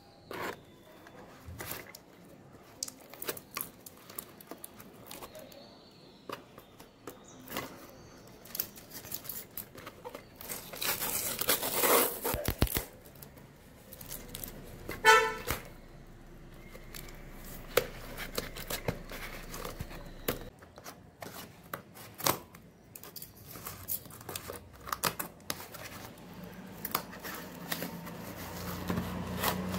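Plastic packing tape being torn and cut off a cardboard parcel with scissors: ripping, crinkling and scraping of tape and cardboard in short bouts, with a longer tearing stretch a little before halfway. A brief toot-like tone sounds about halfway through.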